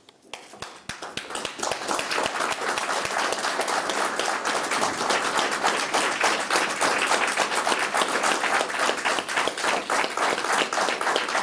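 A small group of people applauding: a few scattered claps at first, building within a couple of seconds into steady applause.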